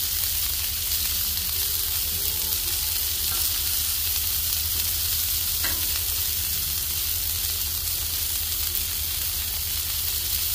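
Smash burger patties and buttered buns sizzling steadily on a hot flat-top griddle.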